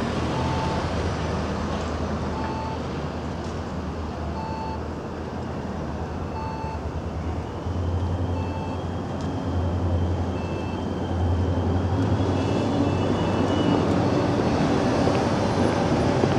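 Road traffic at a city intersection: a steady low rumble of engines and tyres that grows a little louder about two-thirds of the way through. A short electronic beep repeats about every two seconds, with a quicker run of beeps near the end.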